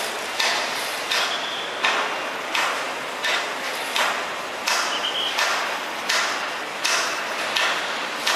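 A machine working in a steady rhythm: a sharp stroke followed by a short hiss, repeating about every three-quarters of a second, with a faint high tone now and then.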